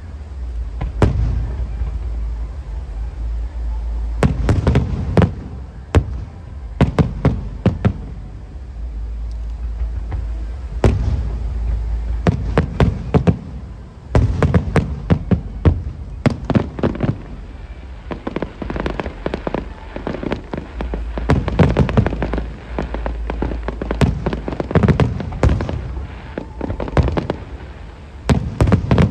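Aerial firework shells bursting in rapid volleys: many sharp bangs in clusters every second or two, over a continuous low rumble.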